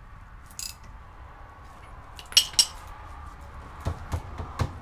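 Metal tool clinking against the castle nut and front wheel hub of a drilled brake rotor as the nut is snugged on the new wheel bearing, with two sharp clinks about halfway through, then a few dull knocks near the end as the rotor is moved.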